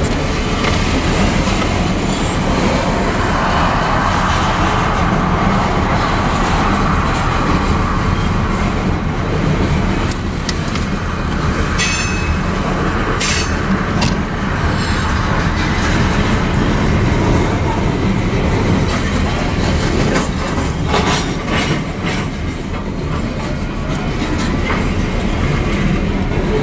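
Covered hopper cars of a freight grain train rolling steadily past: a loud, continuous rumble of steel wheels on rail with clickety-clack over the joints. A few sharp metallic clicks and squeaks come about halfway through and again later on.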